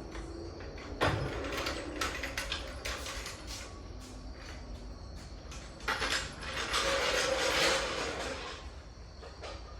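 Mechanical knocks and clanks, the sharpest about a second in, then a longer scraping noise from about six to eight and a half seconds.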